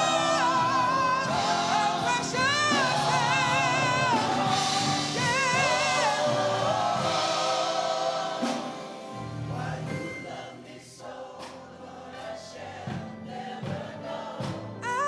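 Gospel singing: long held, wavering vocal lines over instrumental accompaniment, falling away about halfway through to softer accompaniment with light percussive hits.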